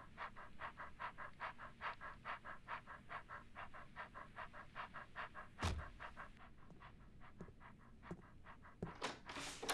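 Cartoon dog panting quickly and rhythmically, about four breaths a second. The panting stops about six seconds in, shortly after a single thump, and a brief scraping noise comes near the end.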